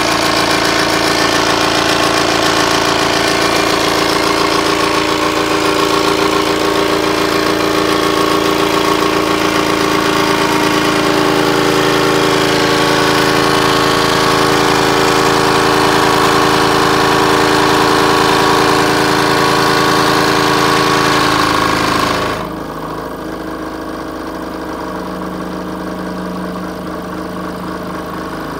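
DeWalt DW788 20-inch variable-speed scroll saw running steadily with a loud mechanical run. About 22 seconds in it drops to a quieter, lower run as the speed knob is turned down, then picks up again at the very end. The owner says the saw came back from the service shop still faulty.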